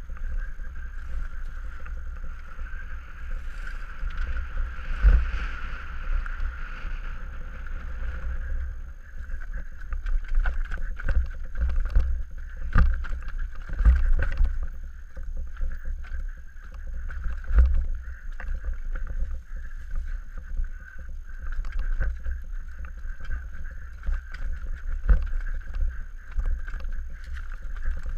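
Scott Gambler downhill mountain bike rolling fast over a rough, rocky trail, heard through a helmet-mounted camera: a steady low rumble with frequent sharp knocks and rattles as the wheels hit rocks and roots, and a steady high hum underneath.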